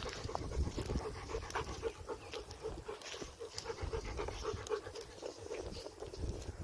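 Large dog panting steadily, about three breaths a second.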